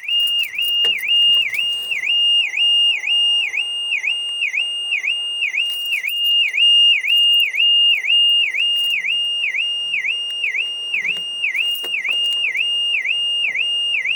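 Car alarm siren sounding without a break: a loud, high electronic tone that dips and swoops back up about two to three times a second, over and over. The alarm is being set off by what the owner takes to be a faulty key fob.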